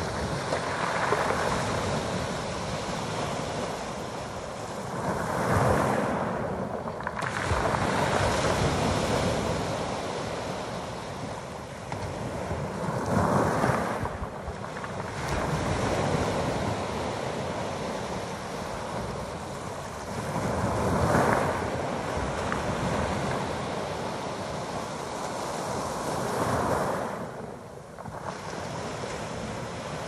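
Small sea waves breaking and washing up a pebble beach: a steady rush that swells and eases every few seconds.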